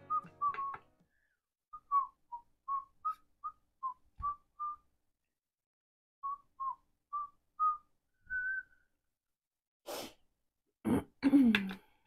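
A person whistling a tune in short, separate notes that step up and down in pitch, after background music ends within the first second. Near the end there is a sharp breathy burst and a short vocal sound falling in pitch.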